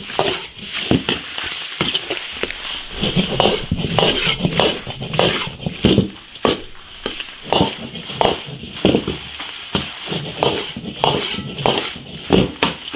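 Long metal ladle scraping and clanking against a large iron wok in quick, irregular strokes as sliced meat is stir-fried and tossed over a wood fire, with hot-oil sizzling underneath.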